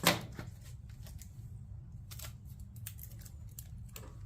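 Scissors handled and snipping: a louder knock at the very start, then scattered short, sharp clicks and rustles, as when cutting adhesive foam weather stripping.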